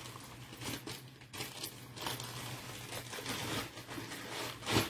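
Soft, irregular rustling and crinkling of a fabric bag and its packaging being handled, with a louder rustle near the end.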